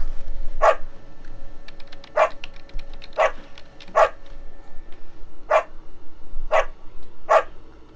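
A dog barking: about seven short, sharp barks, spaced irregularly roughly a second apart.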